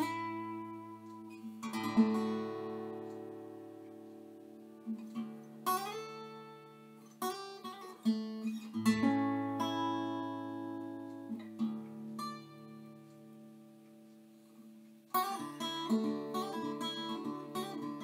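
Background music on acoustic guitar: plucked chords left to ring and die away over low bass notes, with a quicker run of picked notes starting about 15 seconds in.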